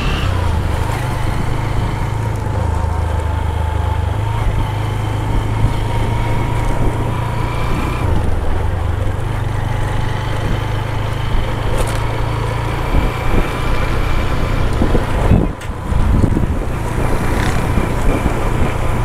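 Motorcycle engine running steadily at low riding speed, with a brief drop in sound near the end.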